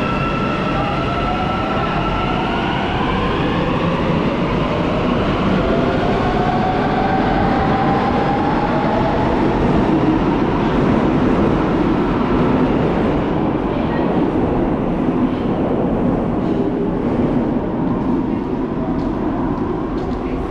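Metro train running, heard from on board: a whine that rises in pitch over the first several seconds, under a continuous rumble of the running train.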